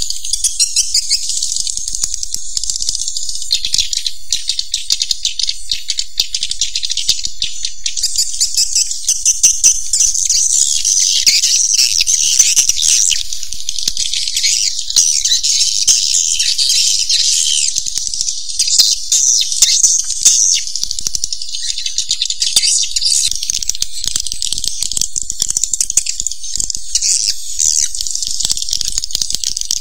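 Recorded swiftlet calls: a dense, unbroken chorus of rapid, high clicking chirps and twitters. It is the kind of swiftlet call track played to draw swiftlets into a nesting house.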